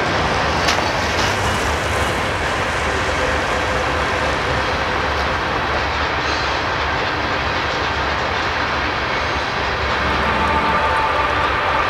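Freight train of covered hopper cars rolling past: a steady rumble of steel wheels on rail, with a couple of sharp clicks in the first second or so and a steady whine joining near the end.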